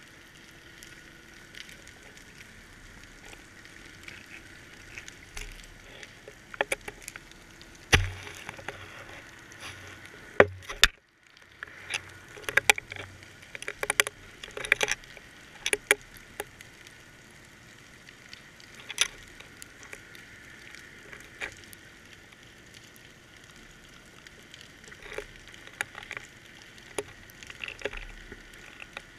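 Camera rig knocking and clicking underwater: a GoPro in its waterproof housing on a weighted trolling line, jostled as the rig shakes. The knocks come in a busy cluster with one loud knock about eight seconds in, then thin out, over a faint steady hum.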